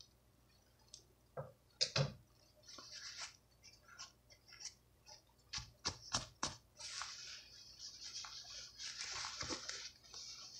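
Soft rustling and rubbing of cotton fabric as a skirt waistband is turned and folded by hand close to the microphone, with scattered light clicks and taps; the rustling is steadiest near the end.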